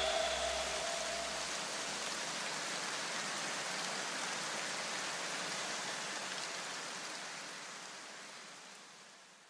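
A soft, steady rain-like hiss of noise. A low note dies away in the first two seconds, and the hiss fades out over the last few seconds.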